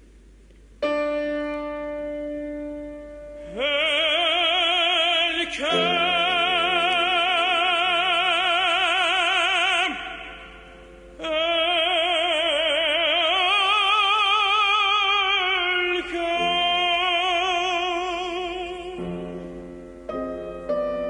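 Operatic solo singing with a strong, even vibrato on long held notes, over piano accompaniment. The piano comes in about a second in, the voice about three and a half seconds in, and the voice breaks off briefly near the middle.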